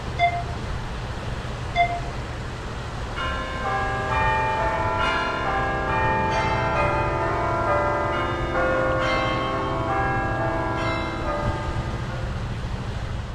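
Bells ringing: two short chimes, then from about three seconds in many overlapping ringing tones struck again and again, over a steady low rumble.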